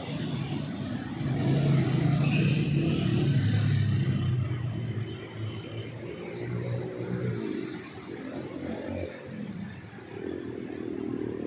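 Road traffic passing close by: motor vehicle engines swell and fade as they go past, one after another, the loudest pass about a second to four seconds in.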